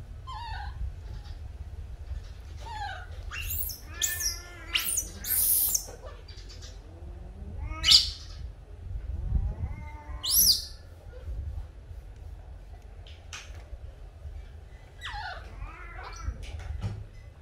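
A small animal crying in a series of high-pitched squeals and mewing calls, some gliding up and down in pitch. The loudest come in a cluster about four to six seconds in, then single sharp squeals around eight and ten seconds.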